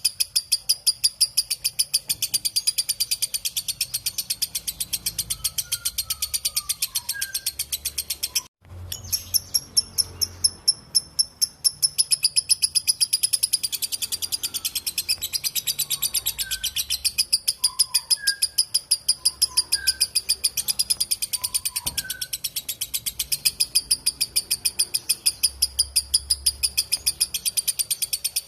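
Lovebird's long 'ngekek' chatter: a rapid, even train of shrill notes, about six or seven a second, that breaks off abruptly about eight and a half seconds in and then starts again.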